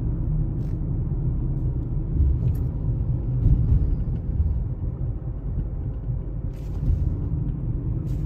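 Steady low road-and-engine rumble of a car driving along a street, heard from inside the cabin.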